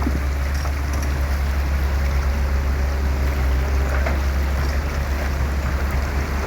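Excavator's diesel engine running with a steady low drone, with a sharp knock near the end.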